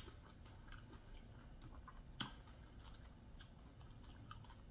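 Faint chewing of a taco mouthful, with small scattered mouth clicks and one sharper click about two seconds in.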